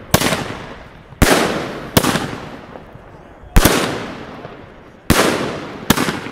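Pangu 'Brasilian Box' 114-shot fireworks cake firing: six sharp bangs at uneven gaps, each shell bursting into gold glitter, with each bang trailing off over about a second.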